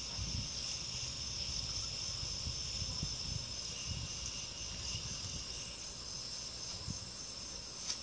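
Steady high-pitched chirring of insects such as crickets, with an irregular low rumble underneath.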